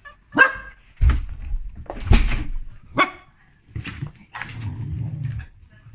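Dogs barking: about five short, sharp barks in the first four seconds, then a longer, lower-pitched call near the end.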